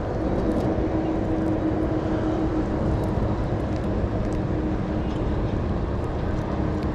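A motor running steadily: a low rumble with a held drone.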